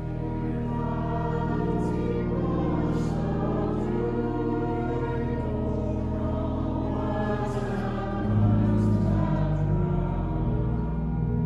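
A hymn sung by voices with organ accompaniment, held chords changing every second or so and growing louder about eight seconds in.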